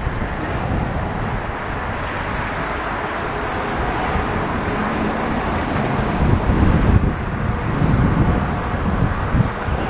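Steady road traffic noise with low rumbling and wind buffeting the microphone, swelling for a few seconds late on.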